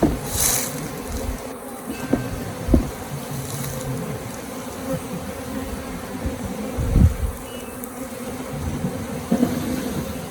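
Honey bee swarm buzzing steadily in a continuous hum, with a few low thuds.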